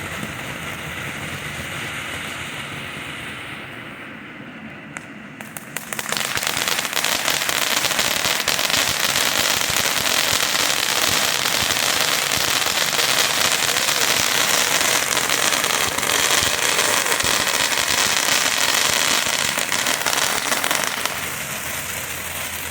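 A 500-gram consumer firework fountain (Phantom Crown Jewel) spraying sparks with a steady hiss. About six seconds in, after a few pops, it jumps into a loud, dense crackle, its crackle effect, which holds and then eases off near the end.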